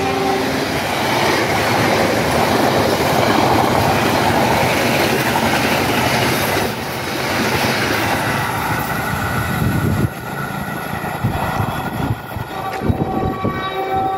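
The passenger coaches of the KA 99 Sancaka express train running past close by at speed, a steady loud noise of wheels on rails. The noise drops suddenly about ten seconds in as the last coach goes by and the train recedes. A train horn starts to sound near the end.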